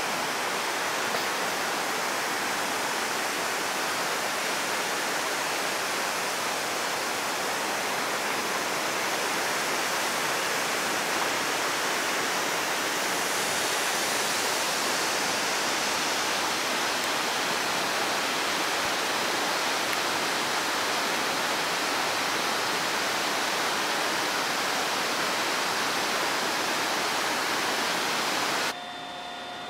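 A river rushing steadily, an even hiss of flowing water, which cuts off suddenly about a second before the end.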